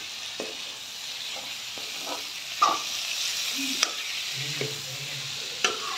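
Chopped onions and tomatoes sizzling in mustard oil in a steel kadhai as a steel ladle stirs them, with a couple of sharp clinks of the ladle on the pan. The tomatoes are cooking down to release their water.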